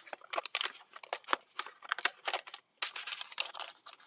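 Paper rustling and crinkling in quick, irregular crackles as signatures are handled and fitted into a paper accordion hinge.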